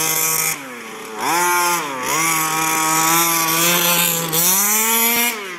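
HPI Baja 5B 1/5-scale RC buggy's two-stroke gas engine with a tuned pipe, revving up and down on the throttle as it drives. It eases off about half a second in, revs back up just after a second, dips briefly near two seconds and again past four, and drops back to a lower note near the end.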